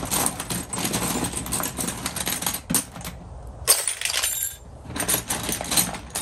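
Loose steel wrenches and sockets clinking and clattering against each other as a gloved hand rummages through the pile, in bursts with short pauses.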